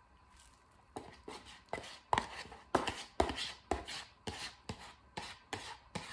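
Metal chopsticks scraping against the inside of a paper cup-noodle cup as saucy stir-fried instant noodles are pulled out onto a steel plate, in short strokes about three a second that start about a second in.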